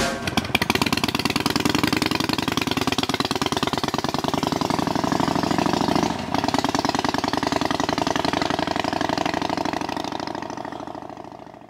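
Harley-Davidson Sportster XL 1200's air-cooled V-twin engine running with a steady rapid pulse as the motorcycle rides away on a gravel track. It breaks off briefly about six seconds in, then fades out near the end.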